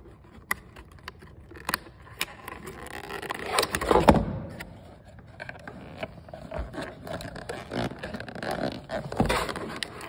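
Stiff clear plastic blister packaging being pried apart and handled by hand: irregular clicks, crackles and scraping of plastic, loudest in a burst about four seconds in and again near the end.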